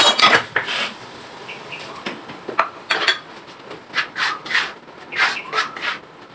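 Metal spatula scraping and tossing greens around a wok while they are stir-fried: a string of short, irregular scrapes.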